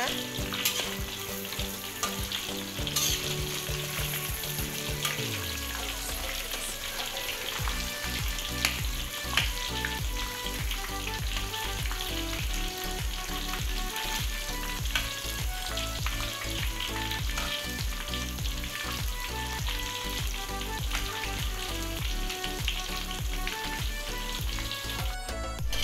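Cut tofu deep-frying in hot oil in a wok: a steady crackling sizzle, with occasional clinks of a metal spatula as the pieces are turned while they fry dry.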